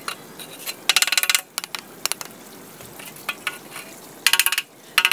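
Metal straightedge scraping over brick and mortar, rasping in short bursts about a second in and again near the end, with scattered light taps between.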